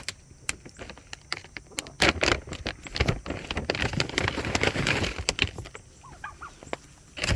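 Rustling, crinkling and clicking of a treat package being handled and worked open, in irregular bursts heaviest in the middle.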